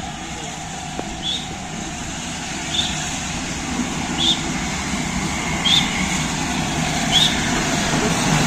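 LNER A4 Pacific steam locomotive rolling slowly into a station, a low rumble that grows louder as it comes closer. A short high squeak repeats about every second and a half.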